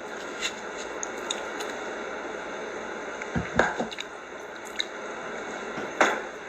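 Close-up eating sounds from someone eating ice cream: soft wet mouth noises and scattered small clicks, with a heavier knock about three and a half seconds in.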